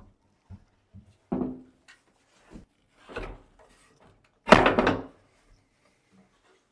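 Wooden knocks and thunks as sauna bench frame pieces are handled and set in place: a series of short knocks, then a louder, longer clatter about four and a half seconds in.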